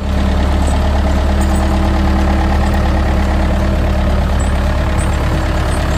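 1981 Case 995 David Brown tractor's 58-horsepower diesel engine running steadily at an even speed, with no revving.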